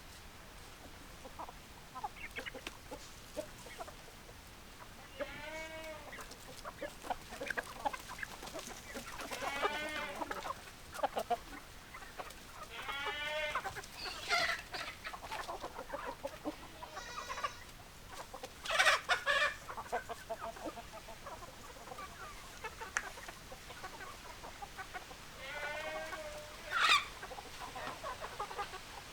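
Domestic chickens clucking: a scatter of short hen calls, with louder drawn-out calls breaking out every few seconds.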